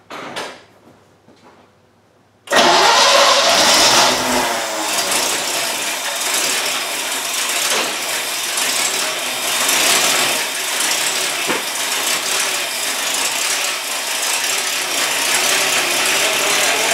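Freshly rebuilt 350 small-block Chevy V8 fires up about two and a half seconds in and keeps running steadily, loudest just after it catches, with the distributor timing just advanced.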